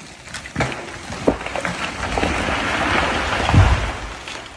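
A felled tree coming down: sharp cracks of breaking wood, a rising crash of branches through the canopy, and a heavy thud as the trunk hits the ground about three and a half seconds in.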